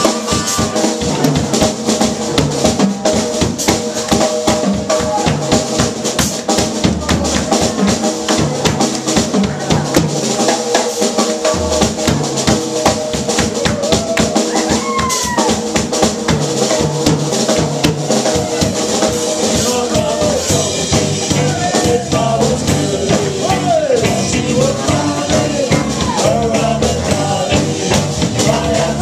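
Live band playing, driven by a drum kit keeping a busy steady beat with cymbals, over bass and other instruments. The bass drops out for a moment about ten seconds in, then comes back.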